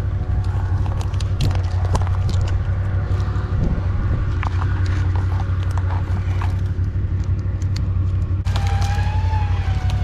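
ATV engine idling steadily, with scattered clicks and clanks of metal gear being handled. About eight and a half seconds in the sound changes abruptly and a wavering whine comes in.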